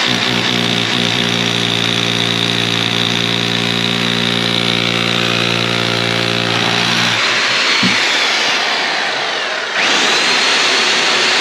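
Power drill with a masonry bit drilling into brickwork, running steadily, then released about seven seconds in so the motor whine falls away, and started again just before ten seconds with a quick rising whine.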